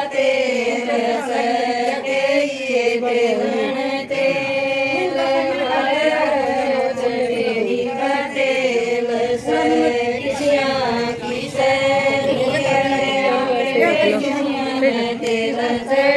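A group of women singing a traditional wedding folk song together, chant-like with long held notes, for the groom's oil-anointing ritual.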